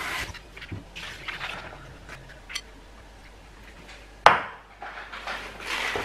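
Kitchen handling clatter of a glass bowl of cut, rinsed potatoes, with a sharp knock about four seconds in as the bowl is set down on the counter. Near the end comes a rustle of paper towel being pulled from the roll.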